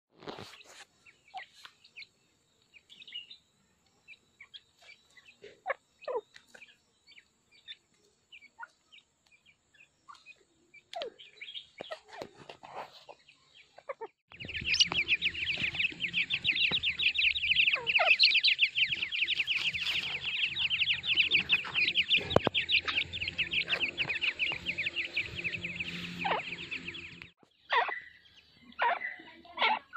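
Dakhni teetar (partridge) chicks peeping and the hen calling, scattered short calls at first. From about halfway the chirping turns dense and fast over a low hum, then stops abruptly near the end.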